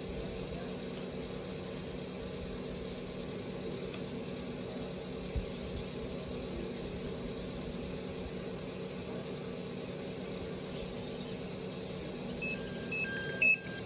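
A machine running with a steady low hum, with a single low thump about five seconds in. Near the end come a few short high tones and then one loud sharp knock.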